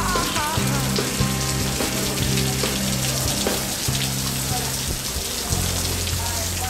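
Steady hiss of rain falling, with many fine drop ticks. Under it runs a low tune of held notes that change pitch about once a second.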